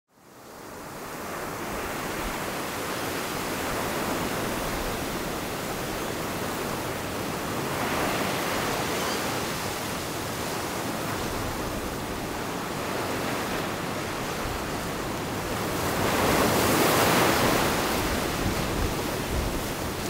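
Sea waves breaking and washing up a sandy beach among rocks: a continuous surf rush that fades in over the first couple of seconds, swells about eight seconds in, and is loudest at around sixteen to eighteen seconds as a bigger wave comes in.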